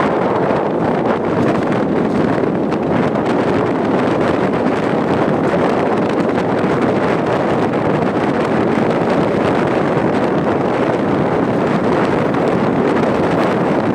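Steady rush of wind on the microphone over the running noise of a moving MEMU electric train.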